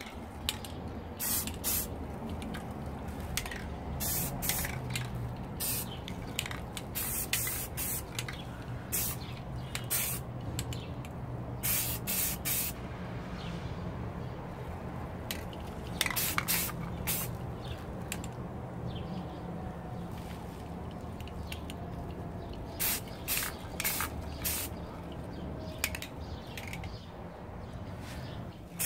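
Rust-Oleum aerosol spray paint can hissing in many short bursts, each a few tenths of a second to about a second long, as paint is sprayed through netting to lay a snake-skin camouflage pattern.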